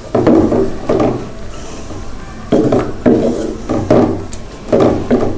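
Spatula stirring and scraping chicken pieces through a thick coconut-milk red curry in a frying pan, in a series of about seven strokes, some in quick pairs.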